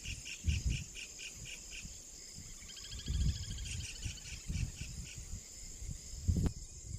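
Insects chorusing: a steady high-pitched drone with a repeated chirp pulsing about four to five times a second, which briefly turns into a faster trill near the middle. Low thumps come through now and then.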